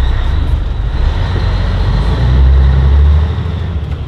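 The diesel engine of a 1984 Peterbilt 362 cabover truck, heard from inside the cab, pulling away under load with a steady high whine above the rumble. The engine note swells about two seconds in, then drops near the end as the driver shifts gears.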